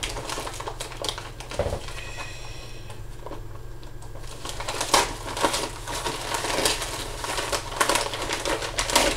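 Brown paper parcel wrapping and packing tape being torn and crinkled by hand, in irregular rustling, crackling strokes. It eases off for a couple of seconds about a quarter of the way in, then picks up again.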